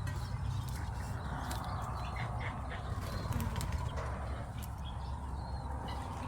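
Faint, scattered short bird chirps over a steady low rumble.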